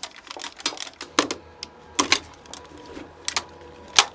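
Irregular sharp clicks and knocks of firearms and gear being handled, with a faint steady hum underneath.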